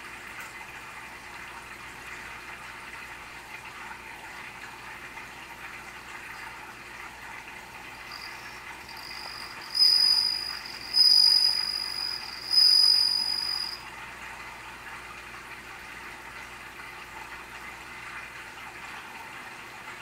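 Japanese bell cricket (suzumushi) singing: after a faint start, three loud, clear, high ringing notes about halfway through, each lasting about a second and fading after a strong onset. A steady background hiss runs underneath.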